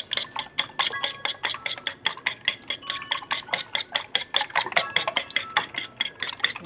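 Eggs being beaten with a metal utensil in a ceramic dish: quick, even clicks of the utensil against the dish, about five or six a second.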